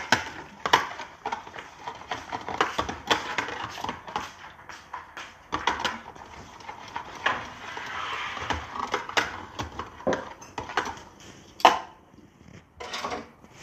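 Wire whisk beating milk and raw egg in a plastic tub: fast, irregular clicking and tapping of the tines against the tub's sides over the churning liquid, with one sharper knock near the end.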